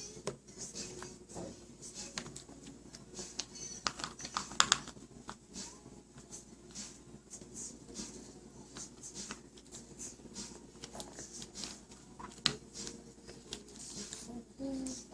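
Irregular light taps and clicks as a baby handles and eats food, with a cluster of louder taps about four and a half seconds in.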